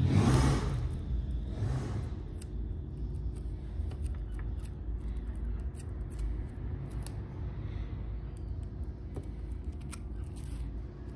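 Small handling sounds of mini-kite making with tape and plastic sheet: two short rustling swells in the first two seconds, then faint scattered clicks and snips.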